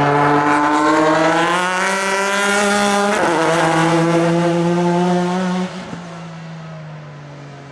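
Pilbeam MP93 LMP2 prototype's JPX/Mader V6 racing engine under hard acceleration, its note climbing for about three seconds and breaking about three seconds in. It then pulls on at a steady pitch and drops sharply in level after about five and a half seconds.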